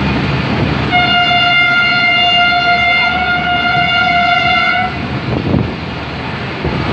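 Locomotive horn sounding one long, steady note for about four seconds, starting about a second in. Under it runs the steady rumble of the moving passenger train.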